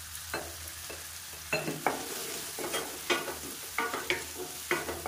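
Wooden spatula stirring and scraping chopped tomatoes and onions in a nonstick kadai, in about eight irregular strokes over a low, steady sizzle of frying. The tomatoes are sautéing in oil with salt to soften them.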